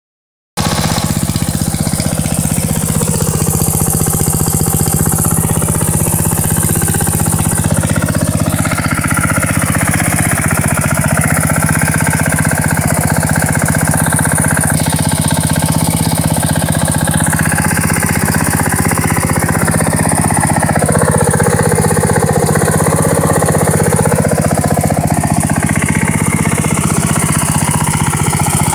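MTD B135 riding lawn tractor's engine running steadily at idle while the tractor stands still.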